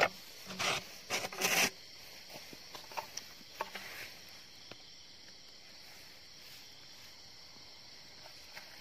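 PVC pipe eel trap being pulled out of the ground and handled, scraping and rubbing against earth and dry grass. A few loud scrapes come in the first two seconds, then only faint ticks and rustles over a steady high hiss.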